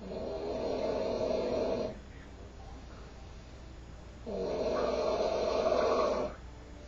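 A sleeping man snoring loudly: two long snores of about two seconds each, a couple of seconds apart. The snoring comes from a man with a severe snoring problem.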